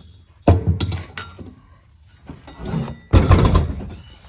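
Aluminum small-block Ford cylinder head being flipped over on a workbench: heavy metal thunks and clinks with handling noise. The loudest knocks come about half a second in and again around three seconds in.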